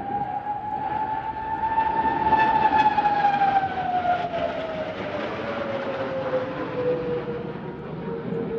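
Display jet passing by: its engine whine rises a little in pitch, then falls steadily as it goes past, over a broad rush of jet noise.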